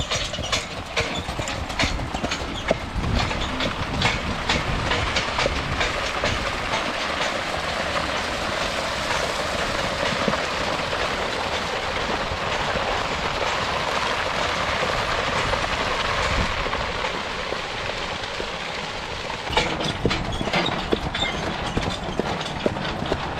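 Excavator track dragged over the ground by a team of draft horses: a continuous scraping rumble with frequent clanks and knocks, thinning out near the end.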